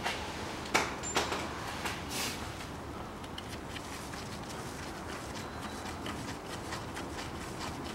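A few light metallic clicks and a short scrape in the first couple of seconds as gloved hands work parts loose on a Haldex coupling's pump and valve housing, then only a steady low background hiss.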